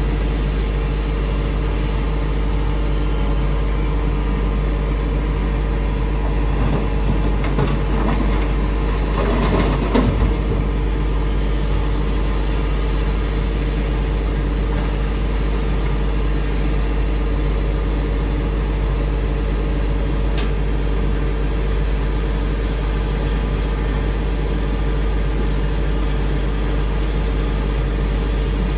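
Hitachi Zaxis 210F excavator's diesel engine running steadily as it works, with a louder surge and clatter about ten seconds in and a brief sharp click later.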